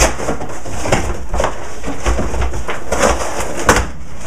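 Large cardboard box being torn open by hand: irregular ripping and crumpling of the cardboard flaps, with some rough handling noise.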